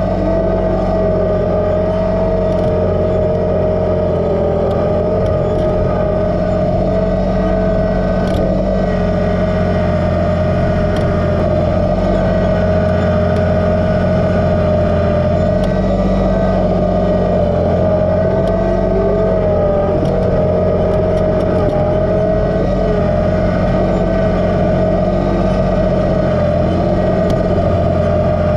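Kubota BX2380 sub-compact tractor's three-cylinder diesel engine running steadily while working snow, with a high whine over it that wavers slightly.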